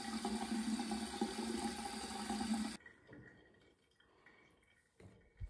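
Bathroom sink faucet running in a steady stream, shut off abruptly about three seconds in.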